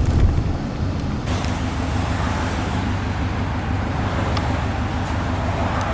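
Car driving: steady engine and road rumble.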